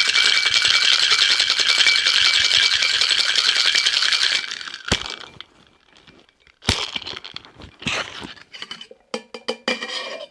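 Ice rattling hard in a stainless steel Boston shaker as a cocktail is shaken, stopping suddenly about four seconds in. Then come a few sharp knocks and lighter clinks of the metal shaker being handled.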